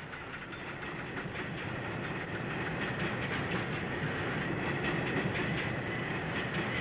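A train crossing the railway bridge overhead: a continuous rumble and rattling clatter of wheels on the track, growing slowly louder, with a faint high steady whine.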